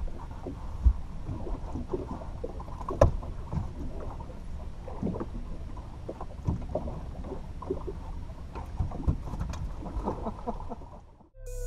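Water lapping against an aluminium boat hull with wind noise, broken by scattered sharp knocks and clunks as a fish is handled in a landing net at the gunwale. It cuts off just before the end.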